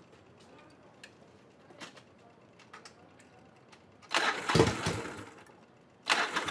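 Motorcycle engine starting: about four seconds in it fires with a sudden loud burst and dies away within a second or two, then near the end it fires again and keeps running with an uneven beat. The rider blames the poor start on the carburetor needing adjustment.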